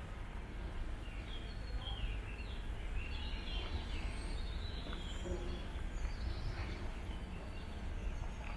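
Open-air garden ambience: a steady low background rumble with small birds chirping, short high calls that cluster in the first half.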